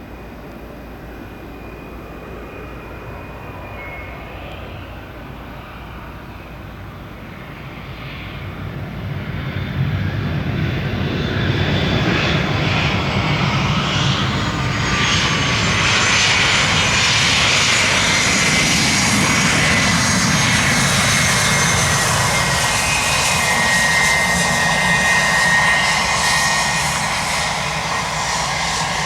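Twin Honeywell HTF7350 turbofan engines of a Bombardier Challenger 350 business jet landing. The jet noise grows much louder from about eight to ten seconds in and stays loud, with high whining tones that slowly fall in pitch.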